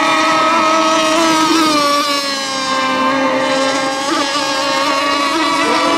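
Several racing RC boats running flat out across the water: a loud, steady, high-pitched drone of overlapping motors. It dips slightly in pitch and loudness partway through, then rises again.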